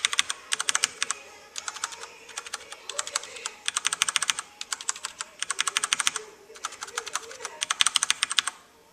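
Fast typing on a Filco Ninja mechanical keyboard with Cherry MX Red switches: rapid runs of key clacks, several strokes a second, broken by short pauses.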